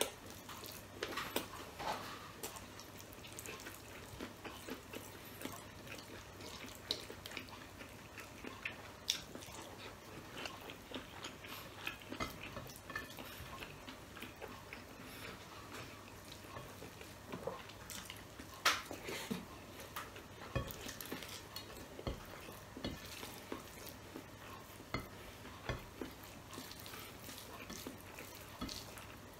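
A person eating fried rice and sausage with his hands: irregular chewing and lip smacks, with soft scrapes and taps of fingers gathering rice on a plate.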